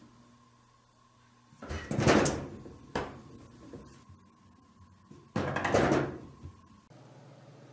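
Wooden-framed glass sliding doors rattling in their tracks: two loud rattles a few seconds apart, with a sharp knock between them.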